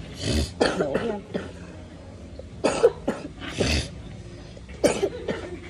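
A person coughing in short bouts, about five coughs: two near the start, two in the middle and one near the end.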